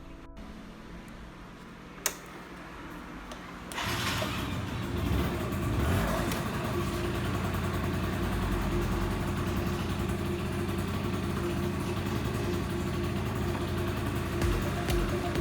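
Yamaha Jog ZR Evolution (SA16J) scooter's 50 cc two-stroke engine, after a single click, comes in about four seconds in and runs steadily, the scooter running again after its carburettor overhaul.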